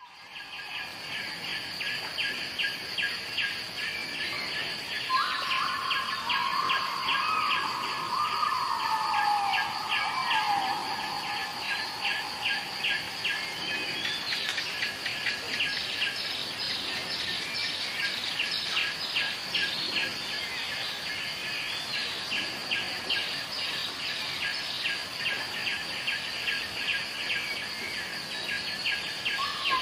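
Natural ambience of insects chirping in rapid regular pulses, several a second, over a steady high buzz. From about five seconds in, a lower whistled bird call slides down in pitch several times.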